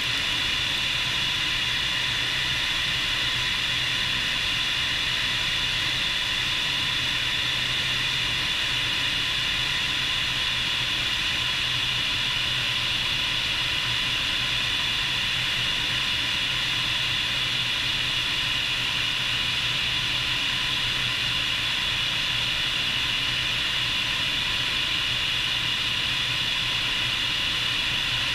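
Bell 430 helicopter's twin turboshaft engines and rotor running steadily, heard from outside on the airframe: a high, constant turbine whine over an even rush of air, with a lower steady hum beneath.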